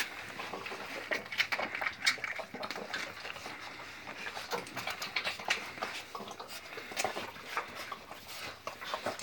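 Pit bull puppies suckling at their mother's teats: a run of quick, irregular wet smacks and clicks.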